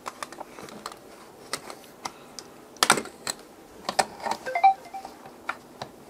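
Irregular hard plastic clicks and taps as an Elgato Stream Deck XL is handled and set into its plastic stand, with the loudest knocks about three seconds in.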